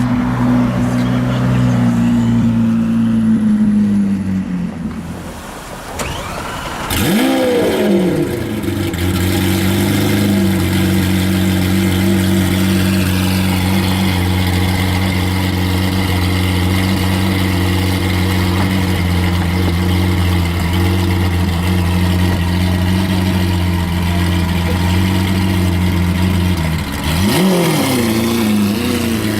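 A supercar's engine running steadily, blipped twice: a sharp rise and fall in pitch about a quarter of the way in and again near the end.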